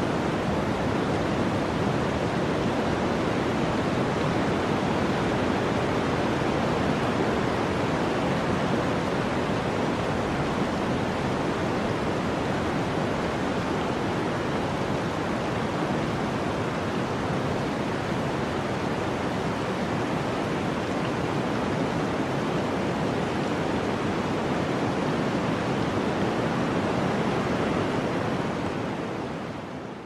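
Blizzard ambience: a steady, even rushing noise of storm wind, fading out near the end.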